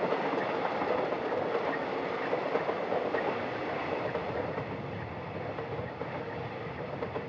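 Electric suburban trains running over the tracks: a steady rumble of wheels on rails with a faint steady tone, slowly fading toward the end.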